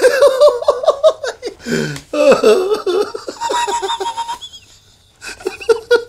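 A man laughing hard in rapid, loud pulses: two long bouts with a short breath between them, a high held note about four seconds in, then a brief lull before the laughter starts again near the end.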